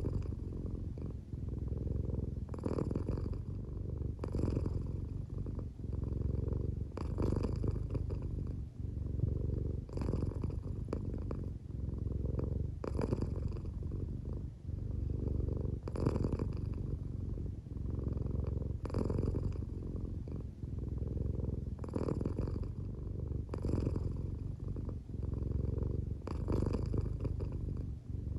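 American Shorthair cat purring steadily while half asleep, the purr swelling with a breathier, louder stretch every couple of seconds as it breathes; the owner thinks the drowsy purr may partly be snoring.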